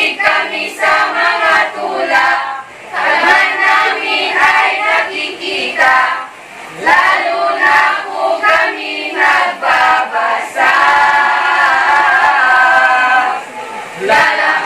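A mixed group of teenage students singing together in chorus, in short phrases, with one long held note about eleven seconds in.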